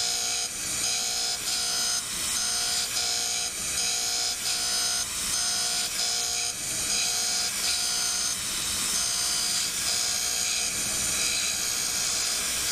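Surface grinder wheel plunge-grinding a groove into hardened tool steel under flood coolant. It is a steady whine over a high hiss, with short regular dips about every two-thirds of a second.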